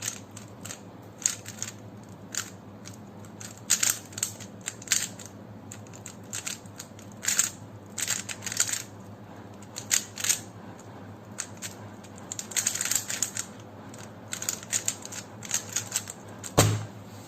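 A 3x3 Rubik's cube being turned quickly by hand: irregular runs of light plastic clicking and clacking as the layers snap round, with a louder, fuller knock near the end.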